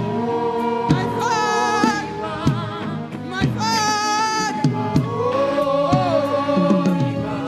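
Live gospel worship music. A voice holds long, wavering sung notes over a band with a steady beat of about one hit a second.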